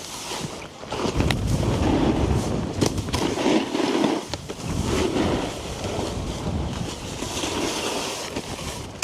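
A snowboard sliding and scraping over snow, with a rumbling, uneven sound and a few sharp clicks, under wind buffeting the microphone.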